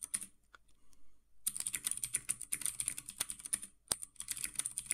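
Typing on a computer keyboard. A few keystrokes come first, then a pause of about a second, then a fast run of keystrokes lasting about two seconds, a short break, and more keys near the end.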